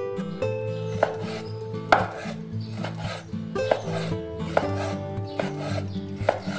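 Cleaver chopping raw beef on a wooden cutting board: sharp knocks of the blade striking the board, about one to two a second, over soft background music.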